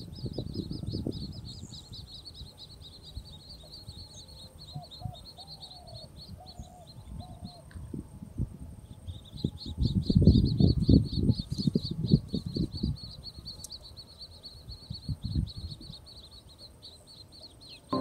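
Little grebe chicks begging with a high, rapid, pulsing chatter that stops for a few seconds midway and then resumes. Underneath are irregular splashes, loudest around ten to twelve seconds in, as the adult grebe handles its prey at the water surface.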